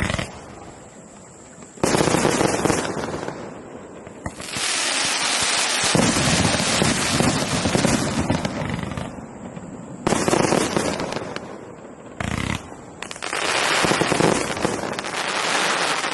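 A 216-shot firework cake firing rapid volleys of bangs and crackles in several bursts, with short lulls between them.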